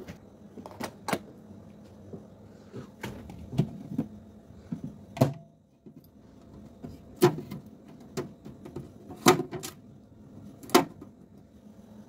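Irregular sharp knocks and clicks, about eight in all, from the plastic trays, drawer and door of a new Dometic DC fridge being handled and moved, with the loudest knocks in the second half.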